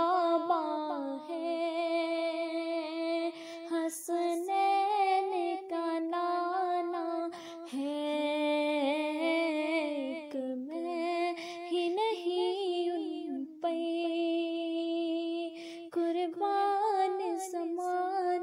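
A female voice singing a naat unaccompanied: long held notes with melismatic turns, in phrases of a few seconds each with short breaks between them.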